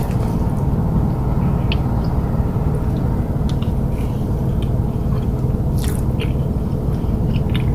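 A person chewing food close to the microphone, with scattered soft, wet mouth clicks about once a second over a steady low hum.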